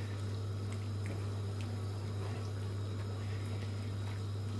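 Thick mince, tomato and kidney bean sauce simmering in a frying pan while it is stirred with a silicone spatula: soft bubbling and faint small clicks of the spatula. A steady low hum runs underneath throughout.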